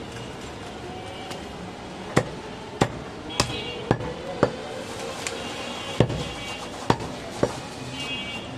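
A heavy butcher's cleaver chopping goat meat and bone on a wooden stump block: about eight sharp, irregular chops starting about two seconds in.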